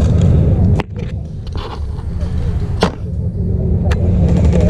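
Three sharp single cracks from airsoft guns firing, about a second, three seconds and four seconds in, the middle one the loudest, over a steady low rumble.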